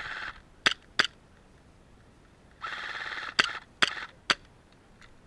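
Airsoft electric gun firing two short full-auto bursts, each followed by a few sharp single cracks.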